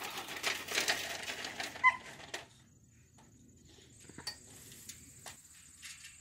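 A dog barks once, short and fairly faint, about two seconds in, over a couple of seconds of rustling, crackling noise. After that, crickets keep up a steady high chirring that gets stronger from about four seconds in.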